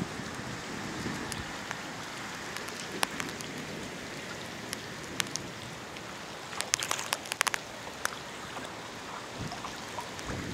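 Steady rain falling during a rainstorm, with a scatter of sharp taps, most of them bunched together about seven seconds in.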